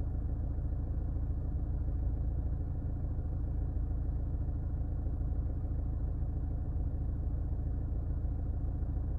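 Diesel Toyota RAV4 engine idling steadily, heard inside the closed, sound-insulated cabin as a low, even hum. The cabin measures about 47 dB(A) at idle, which the owner calls very quiet.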